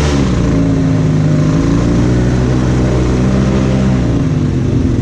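ATV engine running under way, its revs dropping right at the start and then holding steady, with a slight change in pitch about four seconds in.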